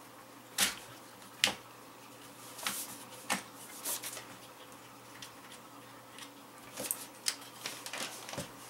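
Sharp clicks and knocks as a cheek riser is fitted onto an AR-15 stock's Picatinny rail and the rifle is handled. A handful of crisp clicks come in the first four seconds, followed by lighter taps and rattles near the end.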